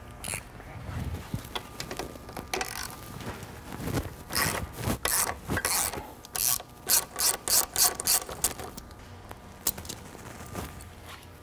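Ratchet wrench clicking in short strokes as a bolt on a motocross bike's rear suspension linkage is loosened. The strokes come about three a second through the middle and stop a couple of seconds before the end.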